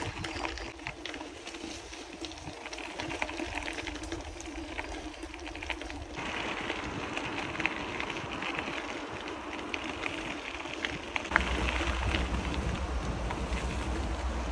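Bicycle ride on a dirt path: tyres rolling over the rough ground with frequent small clicks and rattles from the bike. The sound changes abruptly about six seconds in and again near eleven seconds, when a low wind rumble on the microphone comes in.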